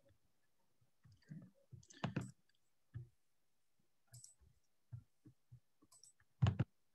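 Scattered soft clicks and small knocks picked up through a video-call microphone, with one louder double knock near the end.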